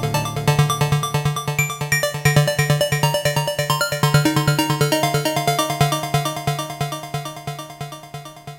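Electronic hard dance music played live on Korg Electribe ESX and EMX grooveboxes: fast repeating synth notes over a pulsing low bass note, gradually fading out.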